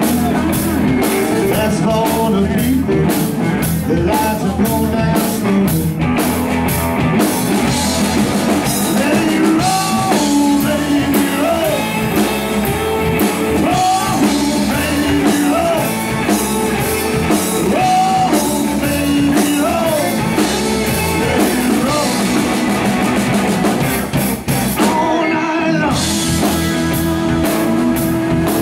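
Live rock band playing a blues-rock song on electric guitars and a drum kit, with a sung vocal. The cymbals and drums drop out briefly near the end before the band comes back in.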